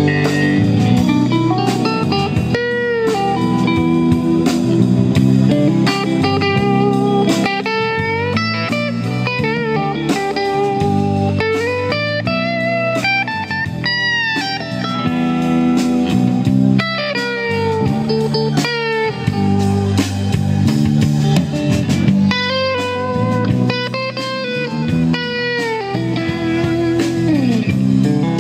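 Live blues-rock band in an instrumental stretch: an electric guitar plays a lead line with bent notes over bass and drums.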